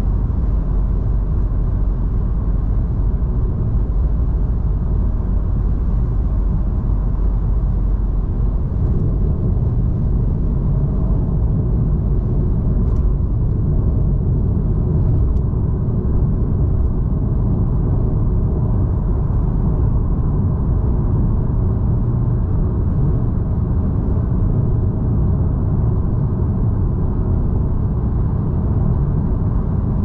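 Steady low rumble of a car cruising at freeway speed: tyre and engine noise that keeps an even level throughout.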